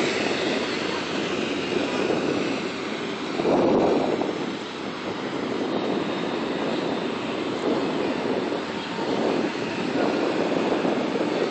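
Wind rushing over a phone's microphone as the bicycle rides along, a steady rushing noise that swells several times.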